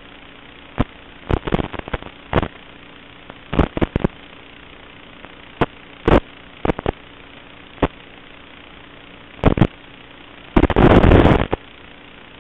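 Steady hiss and faint hum from an FPV quadcopter's analog video-link audio, broken by sudden loud crackles of static every second or so as the radio signal drops out, with one longer burst of static lasting about a second near the end.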